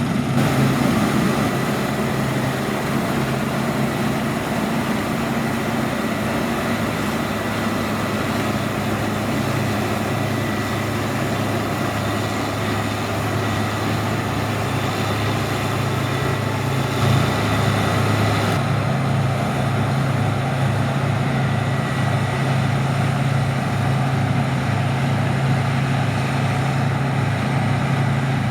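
Diesel harvest machinery running steadily with a deep engine drone and a hiss above it. About two-thirds in, the hiss drops away and a low, even pulsing takes over.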